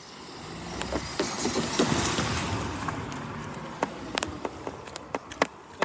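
A motor vehicle passing close by, its sound swelling to a peak about two seconds in and then fading away. A few sharp footstep-like clicks follow near the end.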